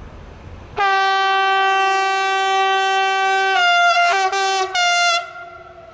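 Siemens Vectron electric locomotive sounding its horn: one long steady blast of about three seconds, then a few short blasts at a slightly lower pitch before it stops.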